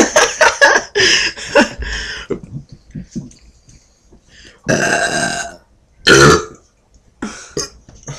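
Loud burps in a burping contest: a quick run of short burps in the first two seconds, a long drawn-out belch about five seconds in, and a shorter, deeper one a second later.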